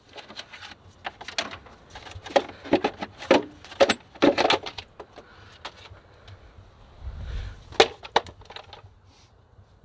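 Ford Taurus's hard plastic air filter box knocking and clattering as it is worked loose and lifted out of the engine bay, in a run of sharp clicks and knocks, with one sharper knock near the end.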